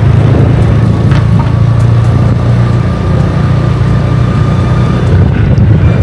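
Steady low rumble of a motor vehicle engine running close by.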